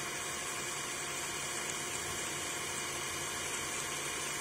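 Cordless drill running steadily, drilling out the head of a corroded, rounded-out screw. The soft corroded metal is cutting quickly and easily.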